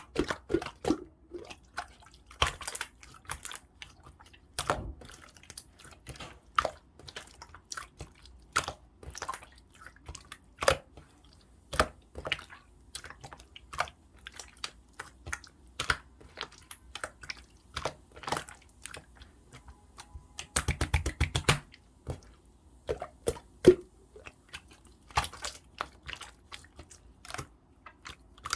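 Clear slime being squished and pressed by hand, making irregular sharp sticky clicks and pops, with a quick run of rapid clicks about three-quarters of the way through.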